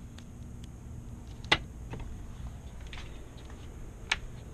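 Two sharp plastic clicks, one about a second and a half in and another near the end, from a car's door trim panel and its wiring connectors being handled after the panel has been pulled off, over a low steady background.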